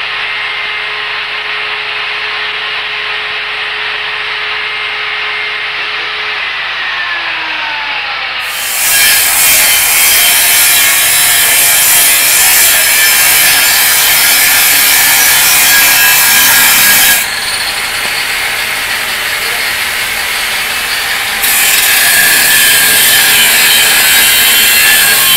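An angle grinder runs free without cutting, a steady whine that slides down in pitch about six to eight seconds in as the disc spins down. About nine seconds in, a loud, harsh grinding takes over: a hand-held angle grinder with a cutting disc cutting into a metal tube, throwing sparks, with two abrupt changes in level.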